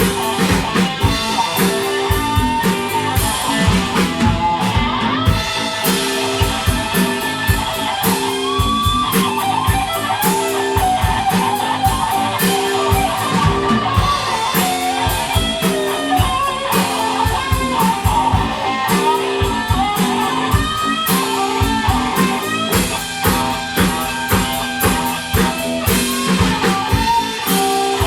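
Blues-rock band music with no singing: electric guitar playing a lead line with bent notes over a steady drum beat.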